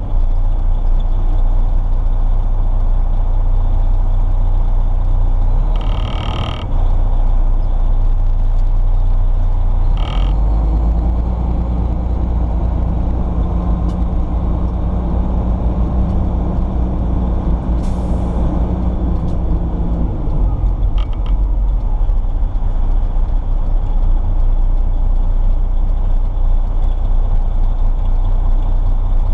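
A 1998 Seagrave rescue pumper's diesel engine running steadily, heard from inside the cab. Short high tones sound about six and ten seconds in, and a brief air-brake hiss comes about eighteen seconds in.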